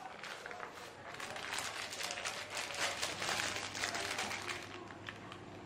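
Thin plastic bag crinkling and rustling as hands rummage in it, busiest in the middle and dying down near the end.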